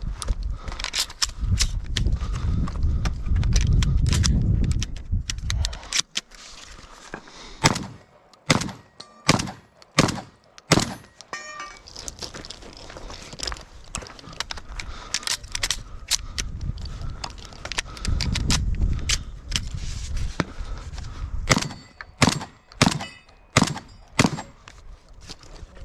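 A run of sharp knocks and clicks from shotgun shooting and gun handling, coming in quick strings about eight seconds in and again near the end. Wind buffets the microphone twice, at the start and past the middle.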